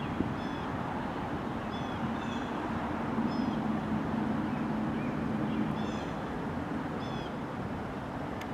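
Distant freight train of tank cars and container cars rolling past, a steady rumble with a low hum that swells in the middle. A bird chirps short high notes over it about once a second.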